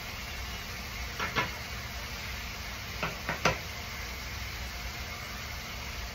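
Steady hiss with a few light knocks, two about a second in and three more about three seconds in.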